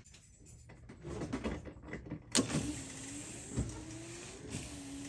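A click about two seconds in, then the Mk2 VW Golf's electric fuel pump whirring steadily as it primes with the key switched to ignition position one. A few light knocks come through over the whir.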